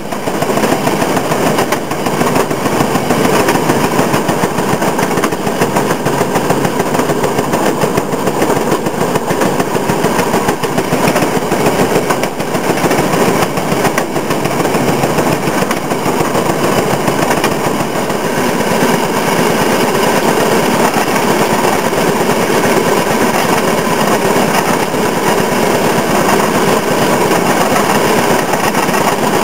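Railroad motorcar (speeder) engine running steadily under way, a rapid, even putt-putt of exhaust pops over the rattle of the car rolling on the rails.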